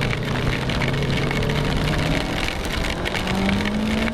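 Yamaha YZF-R3 parallel-twin engine running under way, under a steady hiss of wind and rain on the microphone. The engine note fades about two seconds in and returns at a higher, slowly rising pitch about three seconds in as the bike speeds up.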